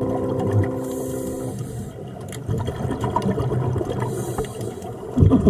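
Underwater sound of scuba divers breathing through regulators: gurgling exhaled bubbles and recurring hisses of air. A louder low burst comes near the end, and held music notes die away in the first second and a half.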